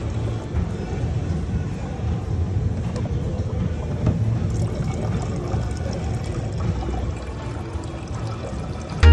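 Water running and pouring steadily, with a rough rushing noise throughout.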